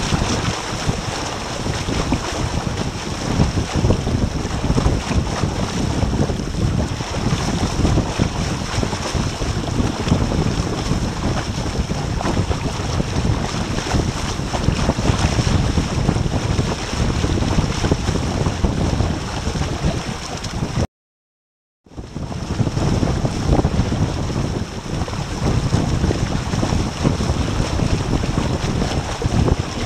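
Wind buffeting the microphone and water rushing along the hull of a small trimaran sailing at about nine knots. The sound cuts out completely for about a second roughly two-thirds of the way through.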